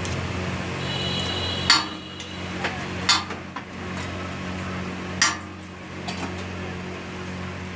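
A metal cooking utensil at a dosa griddle strikes sharply three times, with a few lighter clinks between, over a steady low hum.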